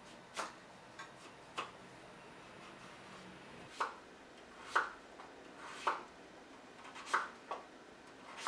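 Kitchen knife cutting through raw squash and knocking on a wooden cutting board: single chops at uneven intervals, about nine in all.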